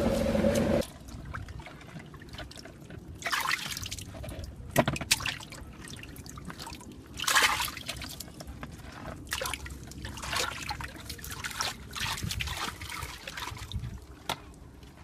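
A boat motor cuts off within the first second. Then water trickles and splashes in irregular bursts.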